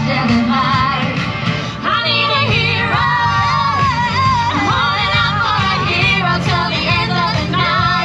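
Loud pop-rock song with a sung vocal line over a steady bass and beat.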